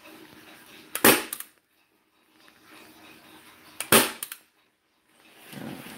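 Hand-squeezed chrome staple gun firing twice, about three seconds apart, driving staples through vinyl upholstery: two sharp snaps, each followed by a brief rattle. A softer rustle comes near the end.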